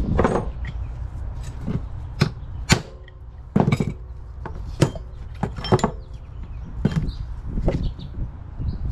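Hand tools and metal driveshaft parts knocking and clanking on a workbench as parts are pried apart and handled: irregular sharp knocks, a few with a short metallic ring, over a steady low rumble.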